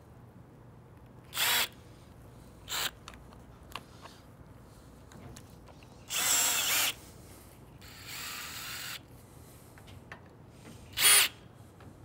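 DeWalt 20V cordless drill driving washer-head screws into a soft-top frame bow, running in several short bursts: two brief ones in the first three seconds, a longer run of nearly a second around six seconds in, a quieter run a little later, and a short loud one near the end.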